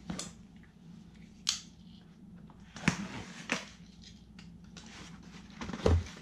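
Cardboard packaging and plastic-wrapped tools being handled: several scattered sharp clicks and crackles, with the loudest, a thump, near the end as a small cardboard box is put down on the floor.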